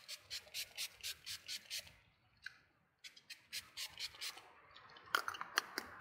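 Fine-mist pump spray bottle of Wet n Wild coconut setting spray being pumped rapidly onto the face, a run of quick hissing spritzes about five a second, pausing briefly around two seconds in before another run. A few sharper, louder clicks near the end.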